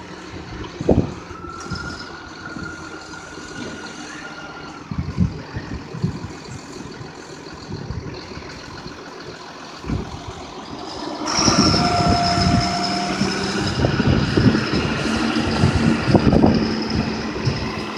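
John Deere 7530 tractor's six-cylinder diesel engine running with scattered knocks. About 11 s in, the engine works harder as the trailed spreader's beaters are engaged: the sound grows louder and a steady high whine joins it as the spreader throws maize silage out the back.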